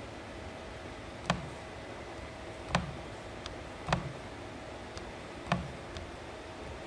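Fingertip taps on an indoor video intercom monitor's touch-screen keypad as digits are entered: four sharp clicks with a dull knock and three fainter ticks, irregular, about one a second, over a faint steady hum.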